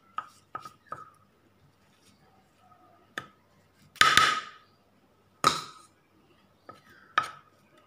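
Metal spoon clinking and scraping against a ceramic plate: a series of short sharp clicks, with two louder clatters about four and five and a half seconds in.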